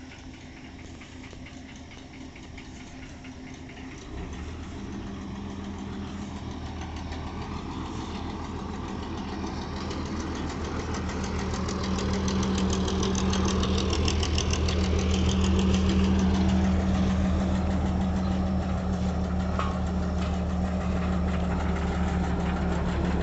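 Road roller's engine idling steadily with an even, low engine note. It steps up about four seconds in and grows louder until about twelve seconds in, then holds level.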